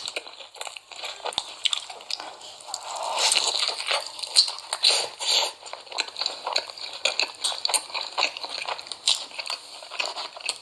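Someone biting and chewing crunchy food close to the microphone, with dense, irregular crackling crunches.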